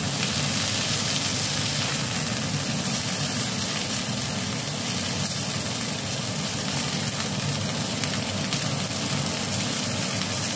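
Chicken wings sizzling steadily as they fry in oil in a nonstick pan, over a steady low hum.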